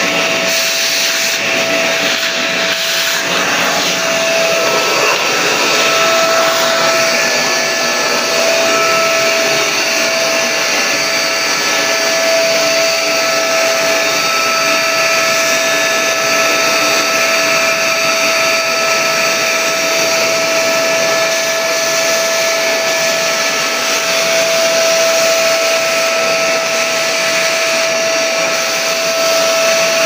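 Kent Vortex 15-litre wet-and-dry vacuum cleaner running steadily. Its motor gives a constant whine over the rush of air drawn in through the long wand as it sucks dust and cobwebs off a wall.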